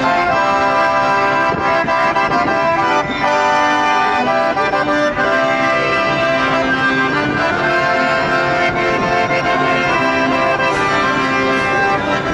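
A piano accordion playing a tune, with held notes and chords.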